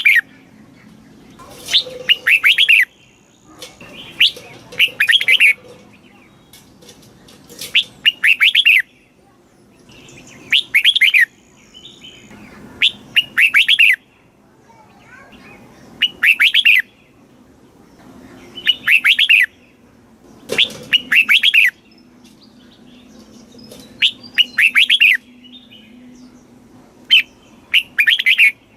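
Red-whiskered bulbul singing: about ten short, loud, bubbling whistled phrases, each about a second long, repeated every two to three seconds.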